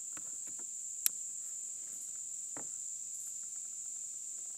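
Insects chirring steadily in a high, continuous band, with a single sharp click about a second in and a fainter click near the middle.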